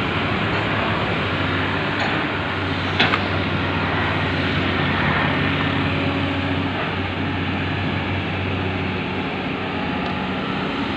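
Komatsu PC200 hydraulic excavator's diesel engine running steadily under load as it digs and swings, its pitch shifting a little partway through. A single short knock about three seconds in.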